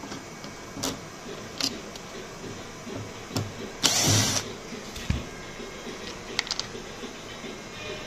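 A Maxstar cordless drill-driver whirs in one short burst about four seconds in, backing out a screw that holds a headlight control module to its plastic housing. Several sharp clicks and knocks of the plastic parts being handled come before and after it.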